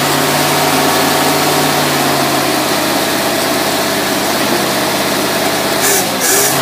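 Engine running on a worn Rochester marine carburetor that has to be coaxed to accelerate, held at raised speed by the throttle and then settling back a little after about two and a half seconds. A few short bursts of hiss near the end.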